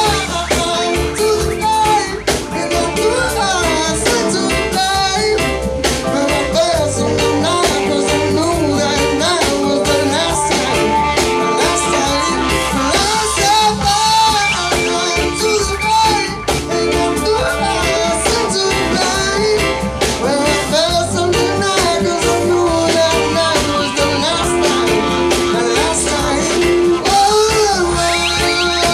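Live band music: a male singer with guitar over a steady bass line.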